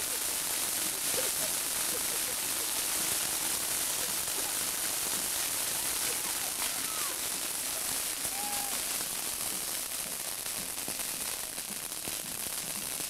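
Ground fountain firework spraying sparks: a steady, dense crackling hiss, brightest in the high pitches.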